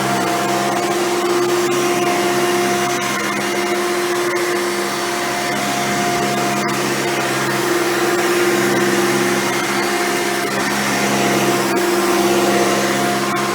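Hoover Runabout vacuum cleaner running steadily: a motor hum holding a constant pitch over a rushing airflow, rising and falling slightly in level.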